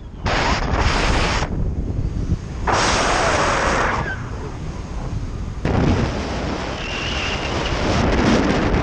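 Strong wind rushing over the microphone in uneven gusts. It surges about half a second in, again around three seconds in, and stays strong from about six seconds on.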